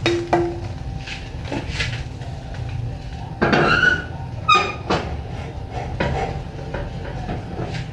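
Metal spatula stirring in a wok of eggplant in sweet soy sauce, with scattered knocks and scrapes against the pan and a louder squeaky scrape about three and a half seconds in. A steady low hum runs underneath.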